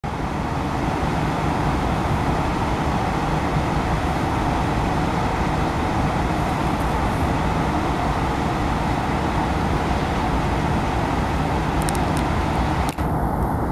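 Steady engine rumble with an even hiss, heard from inside a parked car. Near the end the hiss thins and the sound briefly drops out twice.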